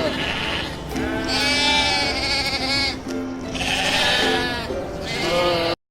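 A sheep or goat bleats several times, long quavering calls, over background music. The sound cuts off suddenly near the end.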